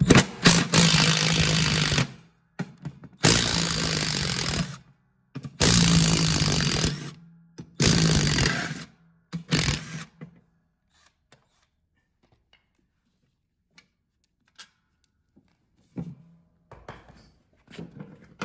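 Cordless power driver spinning out the bolts that hold a mower deck's spindle hub, in four steady runs of about a second and a half each and a short fifth one about nine seconds in. Faint clicks and knocks of parts being handled follow near the end.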